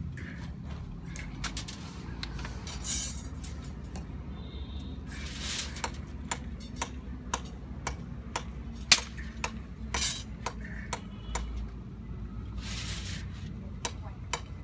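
Steel reinforcing bar being bent by hand with a lever bending tool: irregular sharp metal clinks and knocks, one louder strike about nine seconds in, with three short rasping scrapes.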